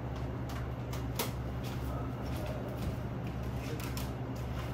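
Plastic CD cases being handled: scattered light clicks and taps over a steady low hum.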